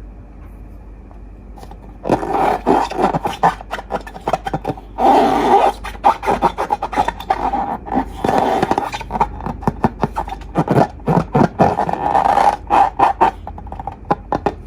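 Rubber balloons being rubbed and squeezed: irregular bursts of rubbery squeaking and scraping, some short and some drawn out, starting about two seconds in and stopping shortly before the end.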